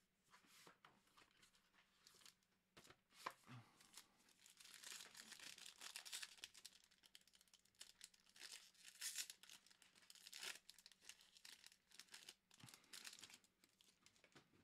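Faint crinkling and tearing of the plastic wrapping on a trading-card box as it is opened, with light clicks as the box and cards are handled.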